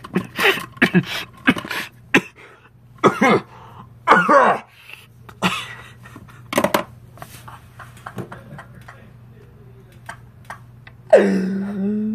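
A man's voice in short, irregular, breathy bursts, some with a rising and falling pitch, then a quieter stretch and a steady held voiced tone near the end.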